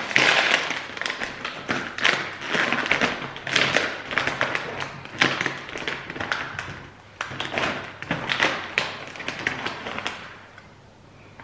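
Plastic snack bag of 7 Days Bake Rolls being torn open and rummaged by hand, a dense run of crinkles and crackles that dies down near the end.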